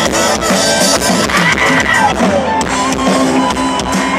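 Rock band playing live through a festival PA, heard from among the audience: electric guitars and bass over a steady drum kit beat, with a falling guitar slide about halfway through and no singing.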